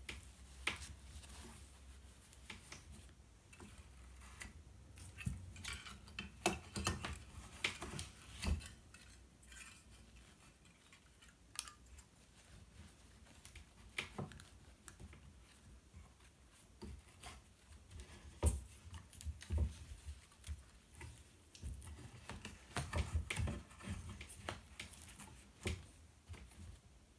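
Scattered sharp clicks and light clatter of metal binder clips being opened and fitted onto a wooden scroll frame's roller. The clicks bunch up about six to nine seconds in and again near the end.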